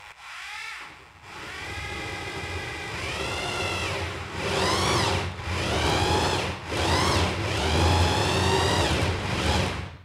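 Bosch PBH 2100 rotary hammer driving a 68 mm core bit through plasterboard. The motor's whine rises and falls several times as it speeds up and slows under the trigger, then cuts off suddenly.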